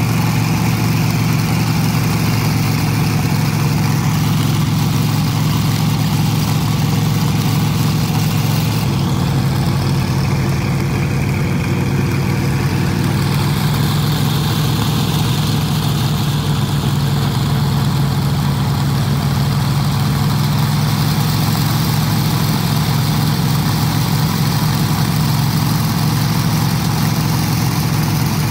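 A 757-cubic-inch radial aircraft engine in a custom pickup truck idling steadily.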